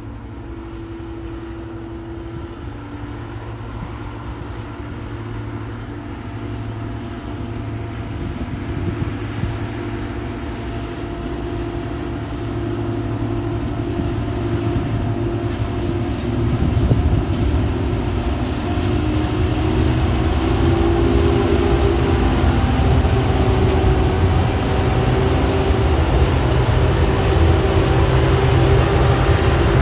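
TasRail TR-class diesel-electric locomotives hauling a loaded log train, their engines running with a steady drone that grows steadily louder as the train approaches.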